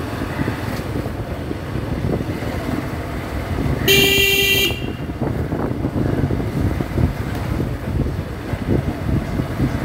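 Motorcycle riding noise picked up by a helmet-mounted phone: a steady low rumble of engine and wind. About four seconds in, a vehicle horn beeps once, briefly, for under a second.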